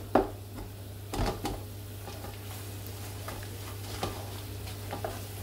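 Wooden spoon stirring and scraping a thick spice paste in a large aluminium pot, with a few sharp knocks of the spoon against the pot, the loudest just after the start, over a steady low hum.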